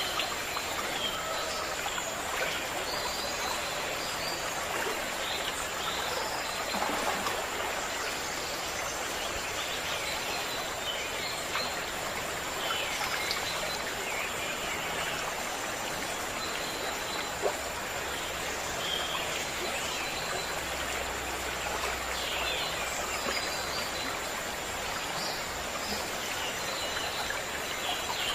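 Steady rushing of a stream, with small birds chirping briefly now and then.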